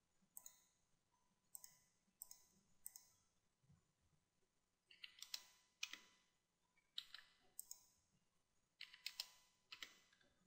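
Faint computer mouse and keyboard clicks: about a dozen short, sharp clicks, many in quick pairs, scattered with irregular gaps and most frequent in the second half.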